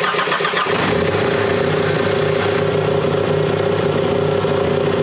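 Fox-body Ford Mustang engine cranking on the starter, catching within the first second and settling into a steady idle.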